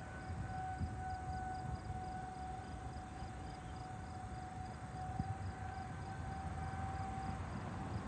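Outdoor tornado warning siren sounding a faint, steady tone that dies away about seven seconds in.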